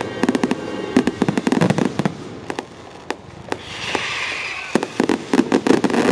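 Fireworks going off: rapid runs of sharp pops and crackles, thinning out for a moment about halfway through, then a hiss about four seconds in followed by a dense burst of pops near the end.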